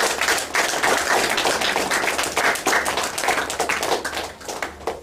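Audience applauding, a dense patter of hand claps, over water trickling as it is poured from one small glass bowl into another.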